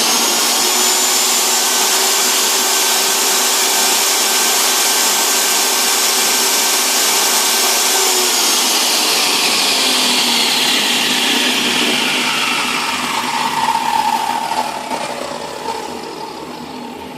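DeWalt table saw's brushed motor running at full speed with a loud high whine. It is switched off about eight seconds in and winds down, its pitch falling as it coasts to a stop. It runs again now that the lignin gumming its carbon brushes in their holders has been cleaned out.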